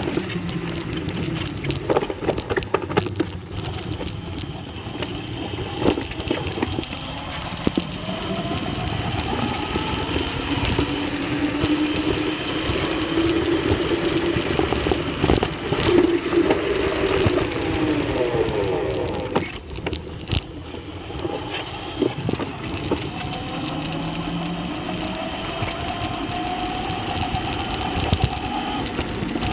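Super Turbo 800 Elite electric scooter riding along asphalt: its electric motor whines, the pitch slowly rising and falling with speed, over steady tyre and road rumble. Frequent short knocks and rattles come through from the scooter's frame and the hand-held phone.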